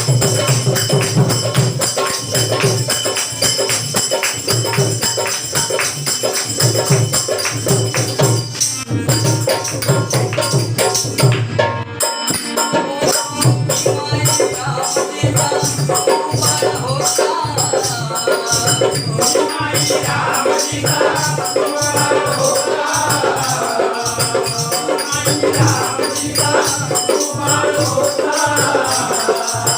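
Live devotional folk song with steady, rhythmic jingling hand percussion and held instrumental tones. A singing voice comes in about halfway through.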